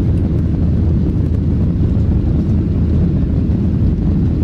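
Airliner on takeoff: a steady, loud low rumble of engine and rushing air.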